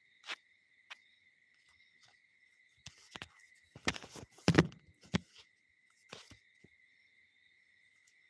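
Phone being handled close to its microphone: a few light clicks, then a cluster of knocks and rubbing in the middle, the loudest knock about four and a half seconds in. Under it runs a faint steady high-pitched tone.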